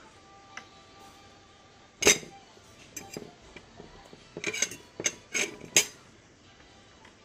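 A metal fork clinking and scraping against a plate in a series of sharp clicks, the loudest about two seconds in and several more close together between about four and a half and six seconds.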